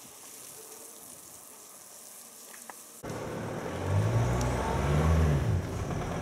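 A car passing close by: after a quiet start of faint background hiss, an engine's low hum comes in suddenly about three seconds in and rises then falls in pitch as it goes past.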